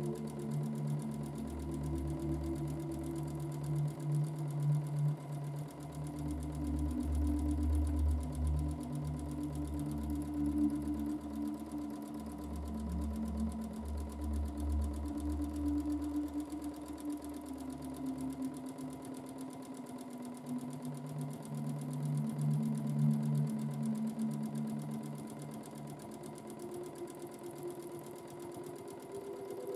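Domestic sewing machine running continuously while free-motion quilting, the needle stitching through the quilt layers; its hum shifts up and down in pitch as it goes.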